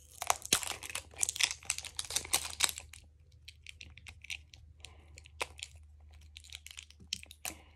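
Fingers crinkling and tearing thin plastic wrap off a small plastic toy egg, with fingernail clicks on the shell. Dense crackling for about three seconds, then scattered clicks.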